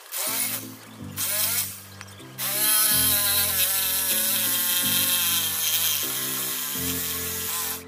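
Handheld electric jigsaw running in two short bursts, then steadily from about two and a half seconds in, its motor pitch wavering, over background music with a bass line.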